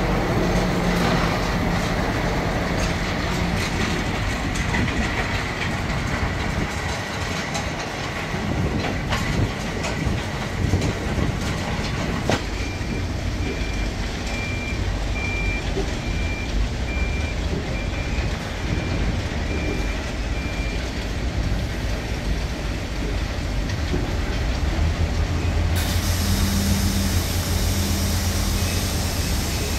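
Scania tipper truck's diesel engine running, with a regular series of high reversing beeps for several seconds in the middle. Near the end the engine holds a steadier, stronger note as its hydraulics raise the gravel-laden tipping trailer body.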